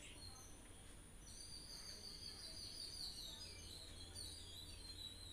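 Faint birds chirping in the background, a run of short high chirps over a low steady hum.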